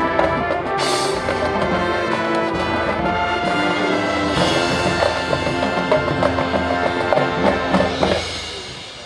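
High school marching band playing: brass sustaining loud chords over drums, with a cymbal crash about a second in. About eight seconds in the band cuts off and the sound rings away.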